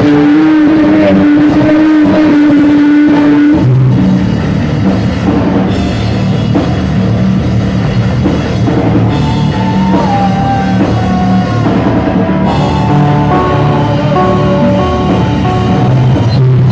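Loud live rock music with electric guitar, bass and drums: one long held guitar note for the first few seconds, then the full band playing on.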